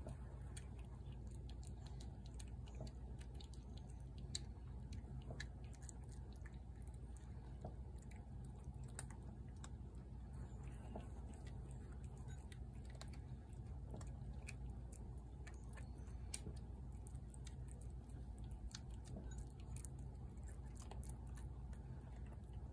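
Tabby cat eating wet food from a plate: faint, irregular chewing and lapping clicks, many per second, over a low steady background hum.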